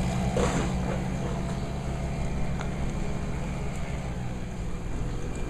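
Boat engine running steadily with a low drone.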